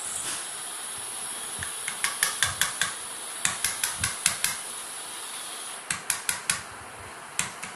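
A baby's hands patting and slapping a wooden bed headboard: quick runs of sharp taps about two seconds in, again from about three and a half to four and a half seconds, and twice more near the end, over a steady hiss.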